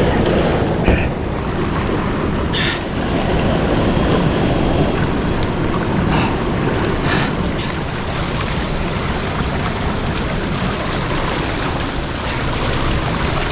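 Steady rushing noise of strong water current, with a few faint clicks.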